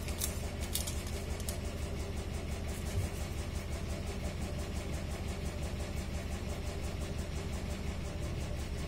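Steady low mechanical hum, with a couple of short clicks in the first second.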